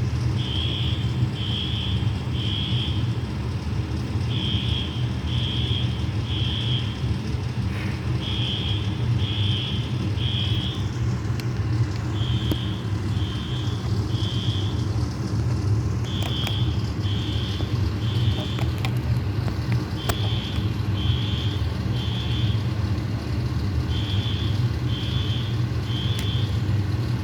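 Building fire alarm sounding the temporal-three evacuation pattern: three high beeps about a second apart, then a pause, repeating about every four seconds. A steady low rumble runs underneath.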